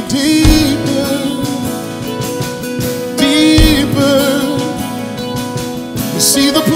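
Gospel praise song: a singer holding long notes with vibrato over steady instrumental backing.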